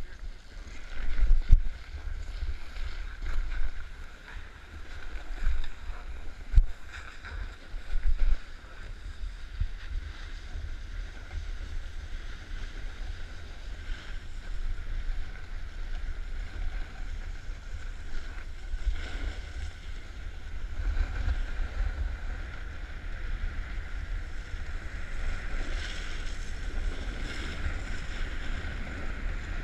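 Wind rushing over a small action-camera microphone, a low rumble, while skis slide and scrape over packed, groomed snow on a downhill run. A few knocks and louder uneven bursts come in the first several seconds, then the rushing settles into a steady hiss.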